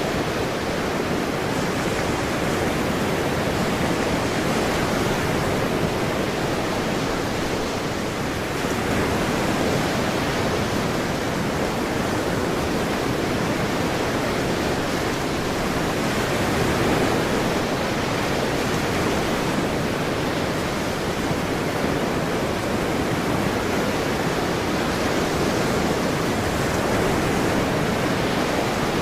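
Ocean waves washing on a shore in a steady, dense rush, swelling and easing gently every several seconds.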